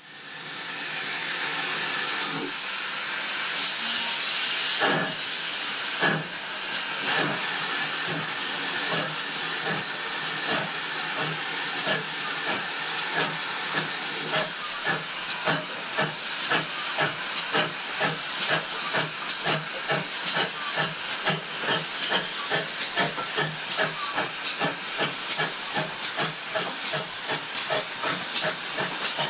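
Ex-GWR 0-6-0 pannier tank No. 9681 pulling away with a train, heard from close behind. It hisses loudly with steam, and its exhaust beats come about one a second at first and quicken to several a second as it gathers speed.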